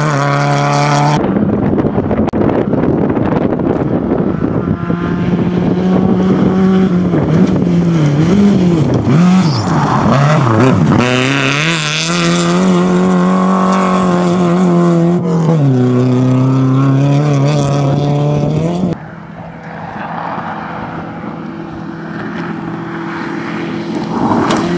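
Rally car engines revving hard on a gravel stage as cars pass in turn, the pitch climbing and dropping with gear changes and lifts off the throttle. The sound changes abruptly about a second in, and again with about six seconds to go, after which it is quieter.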